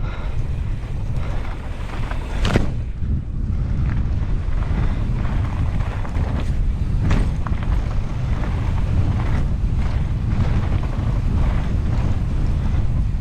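Mountain bike going down a rough trail at speed: wind buffeting the microphone, with knocks and rattles from the bike over the ground and one sharp knock about two and a half seconds in.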